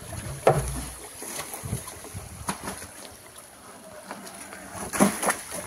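Water sloshing and splashing as live fish are netted out of plastic drums and tipped into a pond, with two louder sudden splashes, about half a second in and near the end.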